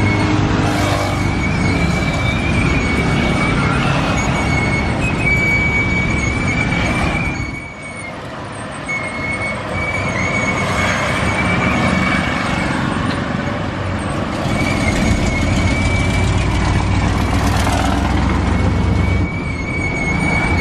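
Steady machine noise: a continuous high whine over a low rumble, dipping briefly about eight seconds in.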